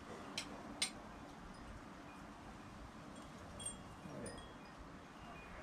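Two faint sharp clicks within the first second, then scattered brief high tinkling notes a few seconds in, over a faint outdoor hiss.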